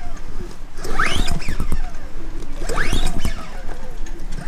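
Recoil pull-starter of a CAT INV2000 inverter generator being yanked for a cold start on choke: two full pulls about two seconds apart, each a whir that rises and then falls as the rope spins the engine over, with a third pull starting at the end. The engine cranks without catching yet.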